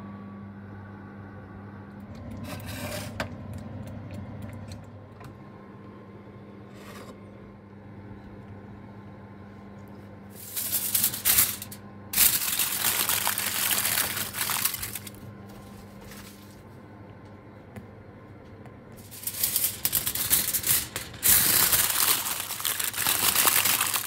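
Microwave oven running with a steady low hum while heating cups of custard pudding. From about ten seconds in, aluminium foil crinkles loudly in three bursts as it is pressed over a hot pudding cup.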